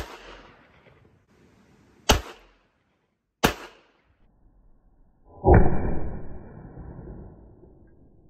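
Becker & Holländer Beholla .32 ACP semi-automatic pistol firing single shots: sharp reports right at the start, about two seconds in and about three and a half seconds in. About five and a half seconds in comes a louder, deeper report with a ringing tone that fades over roughly two seconds.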